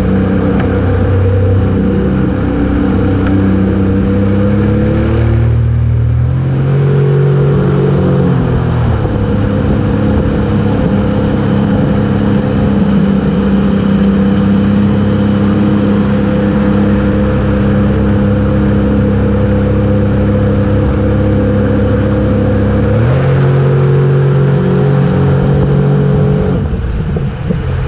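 Motorboat engine running at speed while towing, over the rush of the churning wake and wind. Its pitch dips and then climbs about six seconds in, holds steady, and drops to a lower note about 23 seconds in.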